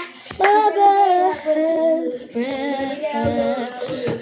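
A young girl singing, holding notes that bend up and down in pitch.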